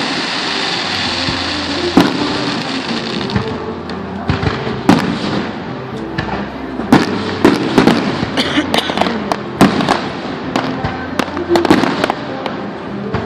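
Aerial fireworks going off: a steady hiss for the first few seconds, then a rapid run of sharp bangs and crackles, several a second at times.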